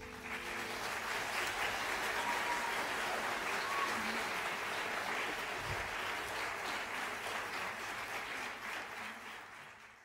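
Audience applauding as a song ends, a dense steady clapping that fades out near the end.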